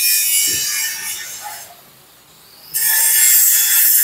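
Two harsh, rasping bursts of metalworking noise, each about a second and a half long, with a short pause between them.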